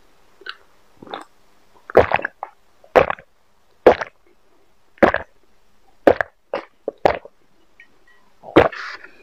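Gulping swallows of a milky drink taken straight from a glass bowl, picked up close by a clip-on microphone: about a dozen short, loud gulps, roughly one a second, some coming in quick pairs.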